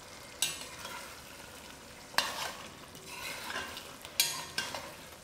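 A spoon stirring a pot of chicken-feet and gram dhal curry, knocking or scraping against the pot three times, over the low sizzle of the curry cooking.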